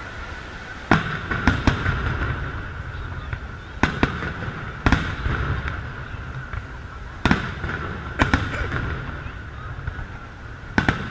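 Aerial fireworks shells bursting overhead: about ten sharp bangs in irregular clusters, some in quick pairs, each trailing off in a low rumble.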